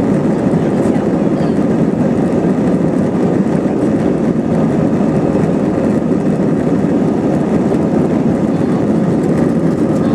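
Jet airliner cabin noise during the takeoff roll: engines at takeoff thrust and the wheels rumbling on the runway, a loud, steady, unbroken noise.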